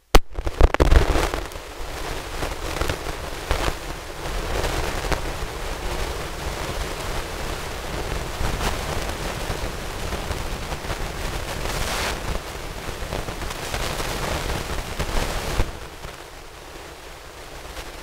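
Wind buffeting an outdoor camera microphone: an uneven rumbling noise with gusty crackles. It is loudest about a second in and eases off a couple of seconds before the end.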